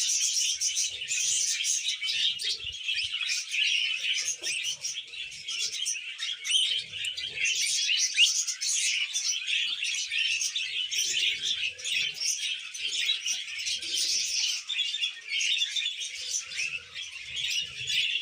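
Several budgerigars chattering continuously, a dense stream of overlapping short chirps and warbles.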